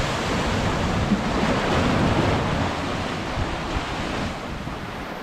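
Sea surf washing over shoreline rocks, a wave surging and then dying away near the end.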